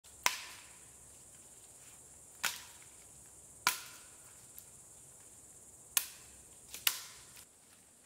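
Large chopping knife striking wood: five sharp cracks a second or two apart, each with a brief ring.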